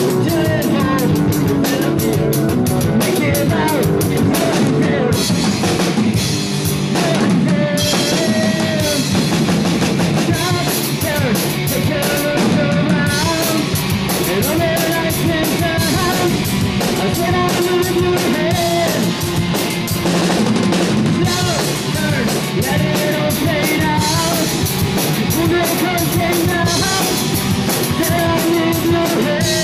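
A rock band playing: a drum kit hitting steadily under guitars, with a voice faintly in the mix.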